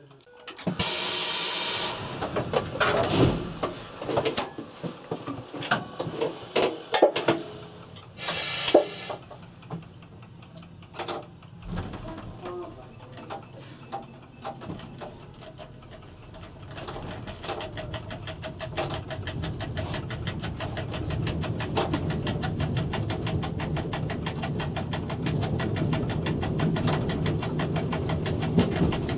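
Cab of an SNCF Z 5300 electric multiple unit: two short loud hisses and scattered clicks from the cab equipment, then from about halfway a fast, even ticking over a low rumble that slowly grows louder as the train runs.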